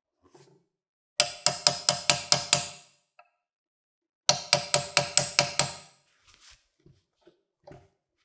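Two quick runs of about six sharp metallic strikes each, each strike ringing briefly with a bell-like tone.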